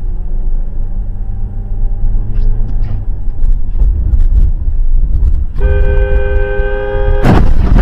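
Low rumble of a car's engine and road noise heard from inside the cabin. About five and a half seconds in, a car horn sounds steadily for about a second and a half. It ends in a loud, sudden crash of impact as a truck is hit.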